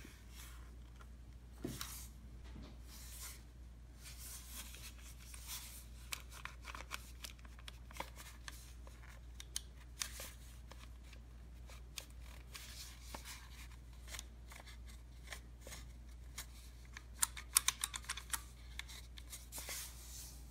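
Handling noise: a plastic butane air lighter turned over and rubbed in the hands, with scattered clicks and short rustles and a quick run of sharp clicks near the end, over a low steady hum.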